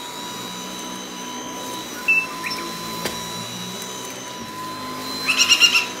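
Cordless stick vacuum cleaner running with a steady high whine. A small parrot chirps briefly about two seconds in and lets out a quick run of loud squawks near the end.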